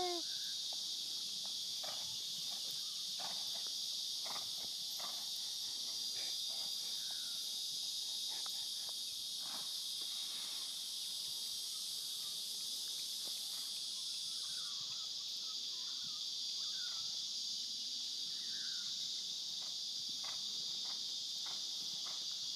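A steady, high-pitched insect chorus drones without a break, with a few faint chirps and soft scattered thuds over it.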